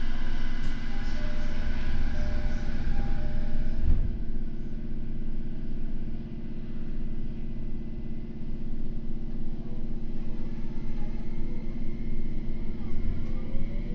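Interior of a Tokyo Metro N05 series train standing at a station: a steady low hum with fixed tones from the car's equipment, and a heavy thump about four seconds in. Near the end, the Hitachi IGBT inverter's rising tones begin as the train starts to pull away.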